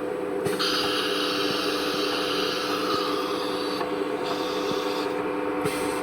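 Compressed air hissing in three bursts, the longest about three seconds, during a tool change on an ATC CNC router. A steady hum from the machine runs underneath.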